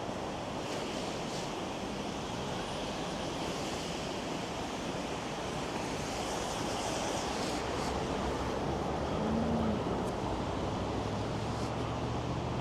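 Steady wash of noise from city traffic on the avenue and wind, without clear individual events.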